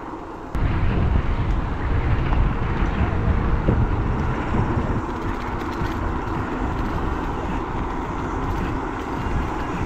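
Steady rumble of road and wind noise from a moving vehicle, jumping suddenly louder about half a second in.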